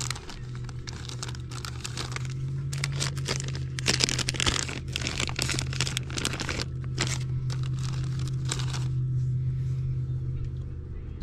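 Clear plastic bag crinkling and rustling in the hands, in a dense run of sharp crackles that dies away about two seconds before the end, over a steady low hum.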